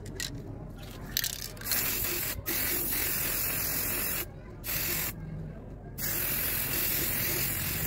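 Aerosol spray-paint can hissing as paint is sprayed onto a foam model plane: a few short puffs, then three longer sprays of one to a few seconds each, with brief pauses between.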